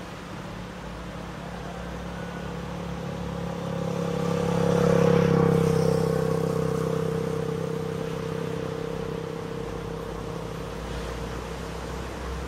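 An engine running steadily as it passes by, growing louder to a peak about five seconds in and then slowly fading, over the wash of small waves breaking.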